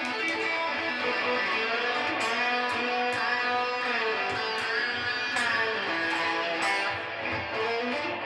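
Electric guitar with a little delay playing a lead pull-off lick, single notes and bent notes ringing into one another.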